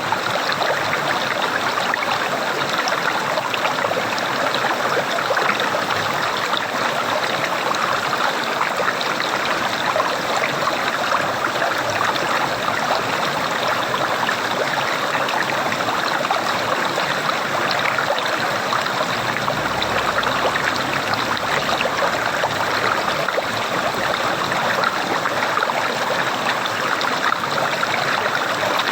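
Running water gurgling steadily, a continuous, even flow with fine bubbling flicker and no pauses.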